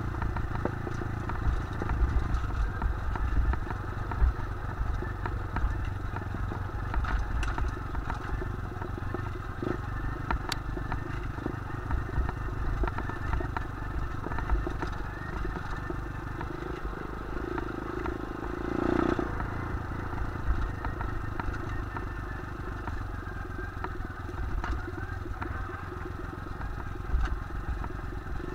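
125cc pit bike's single-cylinder four-stroke engine running as the bike rides along a loose gravel dirt track, with the tyres clattering over stones and wind rumbling on the microphone.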